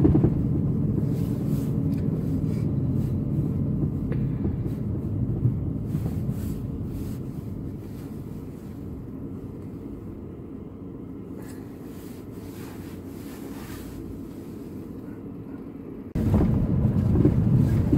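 Car engine and road noise heard inside the cabin while driving, a steady low rumble that dies down as the car slows to a stop at an intersection and idles. The louder rumble returns abruptly near the end.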